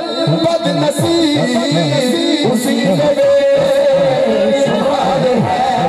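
A man singing an Urdu-Punjabi devotional song (manqabat) over backing music, holding one long note through the middle.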